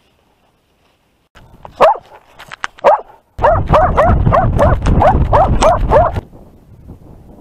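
A dog barking close to the microphone: two single sharp barks, then a rapid run of about a dozen barks, roughly four a second, for about three seconds. Under the fast run there is a loud low rumble of wind and jostling on the dog-mounted camera as the dog moves.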